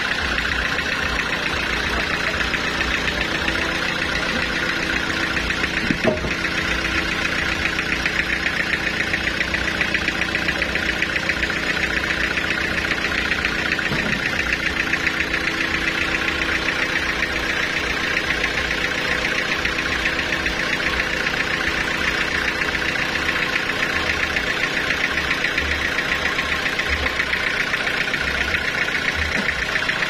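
A homemade sawmill's engine running steadily with a fast, even beat. There is a brief knock about six seconds in.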